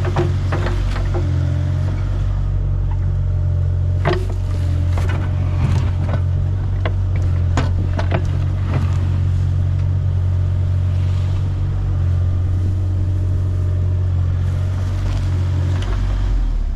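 A heavy machine's engine, an excavator digging for a buried oil tank, running steadily under load. Several sharp metal clanks come from about four to nine seconds in. The engine note drops just before the end.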